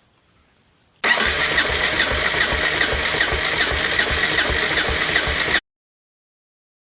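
Yamaha XT660Z single-cylinder four-stroke engine running with a steady beat of regular low pulses, starting abruptly about a second in and cutting off sharply near the end. This is the strange engine noise that the owner traced to a worn big-end bearing.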